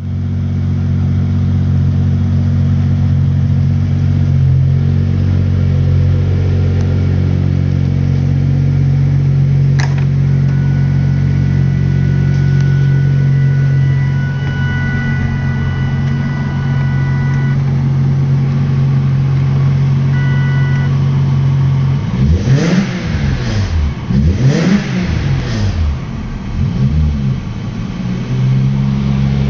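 1989 Jaguar XJ-S modified V12 engine idling steadily. About three-quarters of the way through, the throttle is blipped several times in quick succession, each rev rising and falling back, before the engine settles to idle again.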